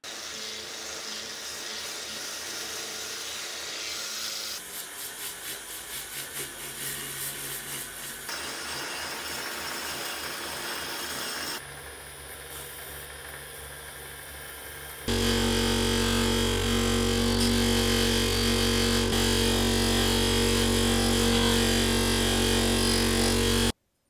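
A drill press spins a rust-pitted metal vacuum-cleaner flange while a strip of abrasive is held against it. A steady motor hum mixes with the rasp of sanding. The sound changes at several edits, is loudest and steadiest in the last third, and cuts off abruptly near the end.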